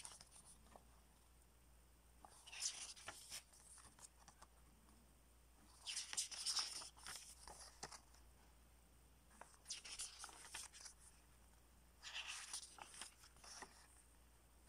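Pages of a paper CD booklet being turned by hand: a soft papery rustle four times, about every three to four seconds.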